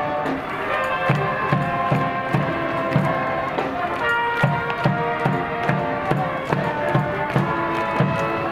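University cheering band playing a cheer tune: saxophones, clarinets and tuba carry the melody over a steady, even beat on large bass drums.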